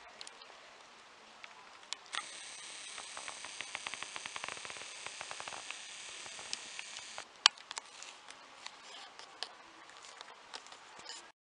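Camcorder zoom motor whirring with rapid fine ticking for about five seconds while the lens zooms in, then small handling clicks with one sharp click. No bells are sounding.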